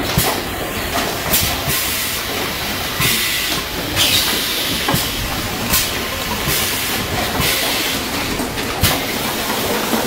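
Pneumatic piston filling and screw capping machine running: short bursts of compressed-air hiss and mechanical clacks about once a second over a steady machine noise.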